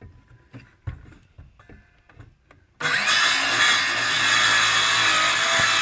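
A few light knocks, then about three seconds in a power saw starts up and runs loudly and steadily.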